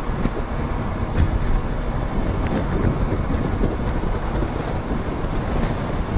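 Steady wind noise on the microphone over the low drone of a motorcycle and its tyres on the road while riding at speed.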